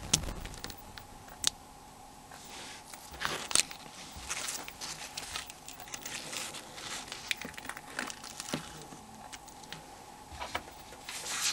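Sparse small clicks and crinkling from a Nokia 6300 being taken apart by hand: a plastic pry tool unlocking the metal clips of the shield, then the film-wrapped display module being handled. A faint steady hum runs underneath.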